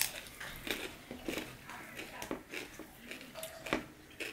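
Close-up mouth sounds of a person chewing a bite of raw white radish: irregular crisp crunches and wet clicks, with one sharper crunch a little before the end.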